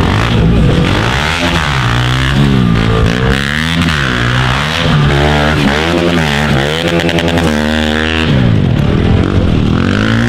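Small pit bike engines revving hard as the bikes race round a dirt track: the engine note climbs and drops back over and over, roughly once a second, as the riders open and shut the throttle through the turns and jumps.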